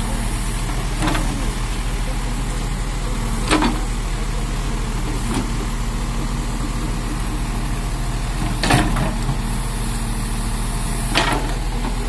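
JCB backhoe loader's diesel engine running steadily under digging work, with four sharp clanks spread through as the steel backhoe bucket strikes and scrapes the stony soil.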